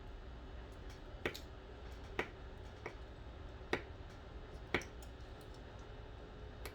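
Five sharp, small metallic clicks, about one a second, from a small precision screwdriver working a tiny screw into a Samsung phone's frame, over a faint steady hum.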